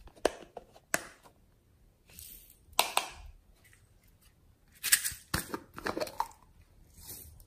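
Plastic slime containers being handled and opened: sharp clicks and taps of the lids against the containers, with scraping and rustling as a screw-top lid is twisted off a jar.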